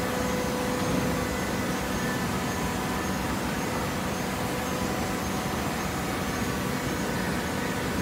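TCM horizontal hydraulic baler running: a steady mechanical hum with a few faint steady tones and no distinct press strokes.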